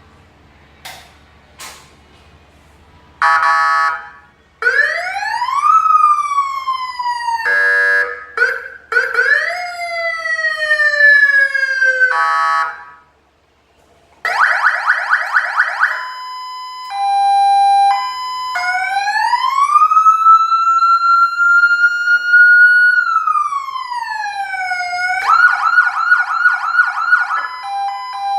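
TBD2000 electronic siren sounding through its tone patterns: a fast warbling yelp, repeated rising-and-falling wail sweeps, a two-tone hi-lo alternating between two steady pitches, and one long slow wail, with a short silent break about halfway through. A few soft clicks come before the siren starts.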